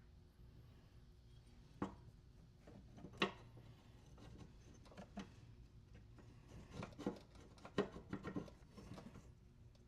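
Scattered metal clicks and taps as a lawn mower blade adapter is tried on an engine crankshaft and found not to fit, with a cluster of quick taps near the end over a steady low hum.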